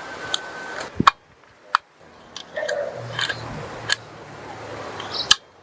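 PCP air rifle giving a series of sharp, irregularly spaced clicks and snaps, the loudest about a second in, with a brief dead-quiet gap after it.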